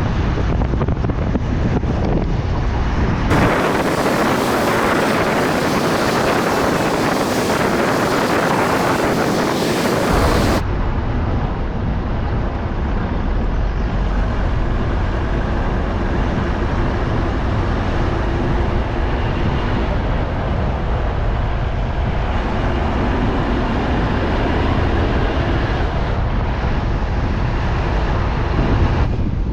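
A car driving, with a steady low rumble of road and engine noise and wind on the microphone. For about seven seconds, from around 3 s in, a harsher full-range wind hiss takes over with less rumble beneath it.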